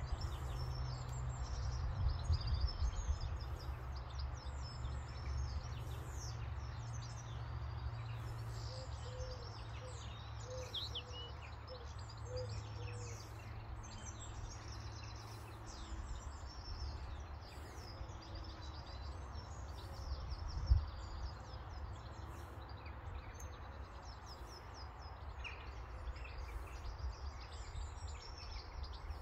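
Wild songbirds chirping and singing throughout, over a steady low rumble on the microphone, with one brief thump about 21 seconds in.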